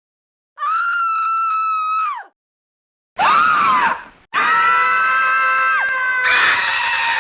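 A series of separate high-pitched human screams from a sound-effects compilation: one held scream, a short one that rises and falls, then a long scream with another one starting over it near the end.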